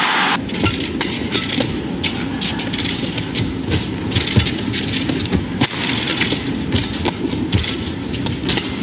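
Badminton rally: a series of sharp racket strikes on the shuttlecock and players' footwork on the court, over steady crowd noise in an indoor arena.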